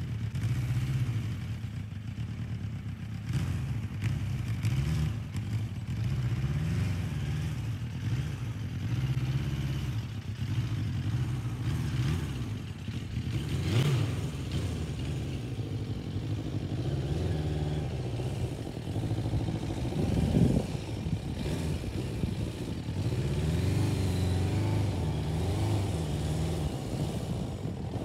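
Sport bike engine running and revving up and down, with several rising-and-falling revs about halfway through and again toward the end; the loudest rev comes about two-thirds of the way in.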